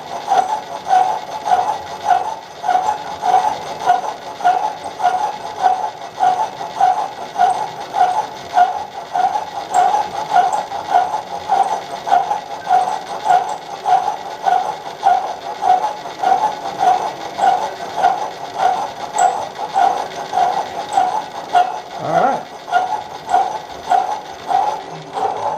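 Drill press running under power feed, boring a cut in an aluminum sleeve, with a steady mechanical whirr that pulses evenly about one and a half times a second.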